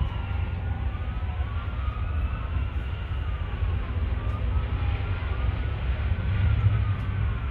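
Several emergency vehicle sirens wailing at once, their tones rising and falling out of step with each other, over a steady low rumble.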